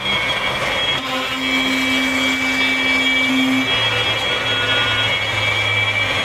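Triton TRA001 plunge router switched on and running at a steady high whine as it cuts a groove along a wooden board.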